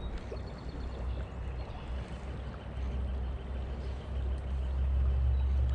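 Flowing river water, with a low rumble underneath that grows louder after about four seconds.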